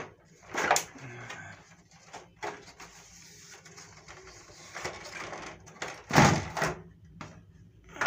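Plastic knocks and scraping from the casing and louver of an LG split air-conditioner indoor unit being handled and pulled apart by hand: a handful of short clatters, the loudest about six seconds in.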